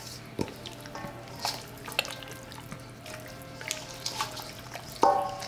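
Hands squelching as they massage oil and seasoning into a raw whole chicken in a stainless steel bowl: irregular wet squishes and smacks, with one louder sound near the end. Background music plays underneath.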